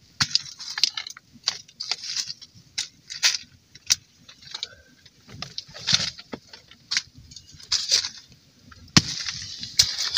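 Split kindling sticks knocking and clattering together as they are handled, in irregular sharp clicks mixed with short rustles.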